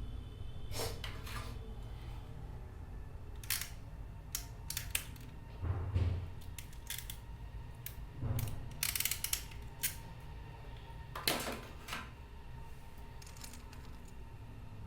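Small hand tools working on cable and connector: irregular sharp clicks and short snipping strokes, the loudest around six and eleven seconds in, over a steady low hum.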